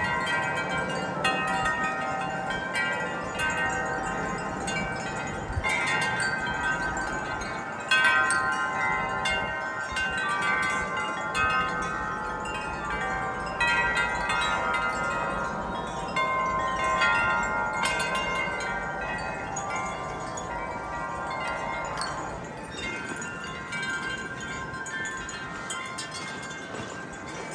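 Wind chimes jangling continuously in strong gusty wind, many tones struck over and over and ringing on, with the wind blowing underneath.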